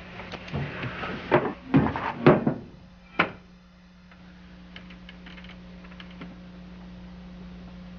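A run of heavy thumps and knocks, the three loudest about half a second apart, then one sharp knock about three seconds in and a few faint clicks: household handling and movement sounds. A steady low hum runs underneath.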